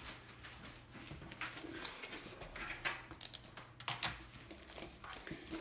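Rustling, light taps and small clicks from hands handling a rolled paper-backed canvas and its plastic wrapping. There is a brief sharp crackle a little over three seconds in, and a smaller one about a second later.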